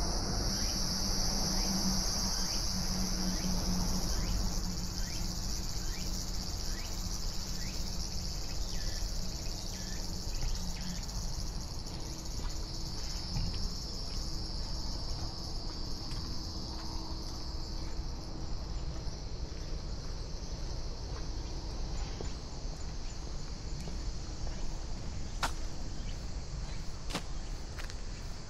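A steady, high-pitched chorus of insects over a low background rumble, with two sharp clicks near the end.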